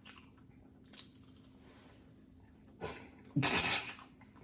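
Close-miked eating sounds from a fried chicken mukbang: faint mouth clicks and smacks, then a louder noisy crunch-like burst and a brief voiced sound near the end.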